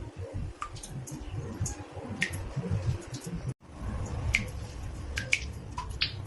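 Water drops falling irregularly into a bathtub, each a short plink at a different pitch, over a low steady rumble. The sound cuts out for an instant about halfway through.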